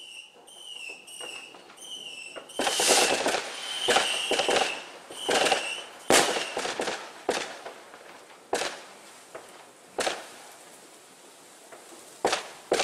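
New Year's Eve consumer fireworks: a run of short, high whistles at first, then crackling volleys and sharp bangs with more whistles among them. Toward the end come single sharp bangs a second or two apart.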